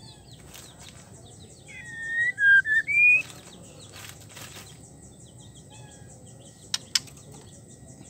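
Female white-rumped shama calling: a couple of seconds in, one short phrase of four clear whistled notes that swoops down and then rises at the end. It is the call of a female in breeding condition calling to males. Two sharp clicks come near the end, over a fast faint high ticking in the background.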